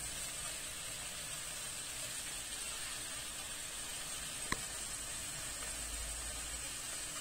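Whole small fish cooking in a steel pot on a gas burner, giving a steady sizzling hiss, with one sharp click about four and a half seconds in.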